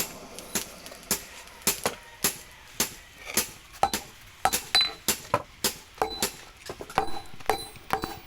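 Blacksmith's hammer striking steel on an anvil while forging a chopping-knife blade: sharp strikes about two a second, coming a little faster past the middle, with a clear metallic ring from about halfway on.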